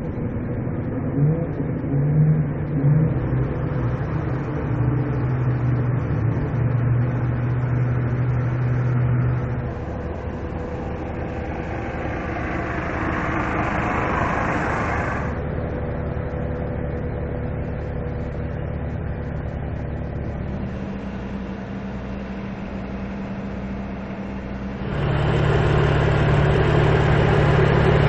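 2015 BMW M3's twin-turbo straight-six engine and exhaust while driving, the engine note shifting in pitch. About halfway through, the revs build with more exhaust noise and then cut off suddenly. Near the end the engine note turns louder and stays up.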